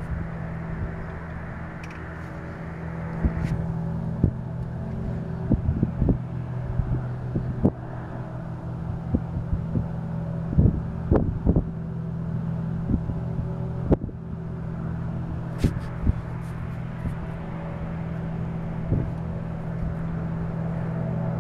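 Steady low industrial hum holding several fixed tones, which the recordist blames on the aluminium smelter's machinery. Irregular short thumps knock on the microphone throughout.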